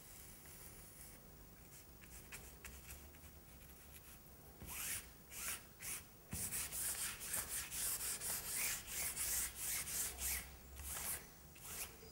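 A hand scrubbing a small pad over a painted canvas: faint scratching at first, then from about four and a half seconds in a rapid run of short, scratchy rubbing strokes.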